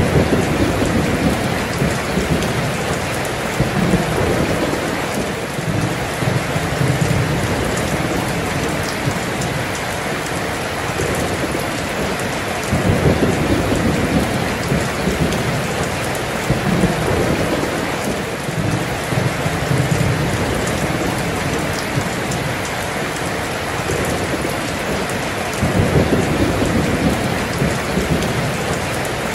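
Heavy rain pouring steadily, with rolling thunder rumbling low several times, the strongest rumbles about halfway through and near the end.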